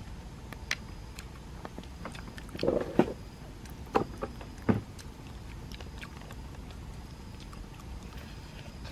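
Charred roasted eel being pulled apart by hand: a short crackle about two and a half seconds in, then a few sharp snaps over the next two seconds, against a steady low background noise.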